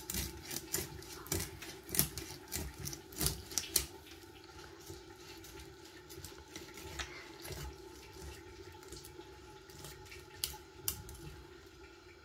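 A large chitol fish being sliced on a boti's upright curved blade, its scaly skin and flesh crackling and clicking against the blade. The clicks come thick and fast for the first few seconds, then thin out over a faint steady hum.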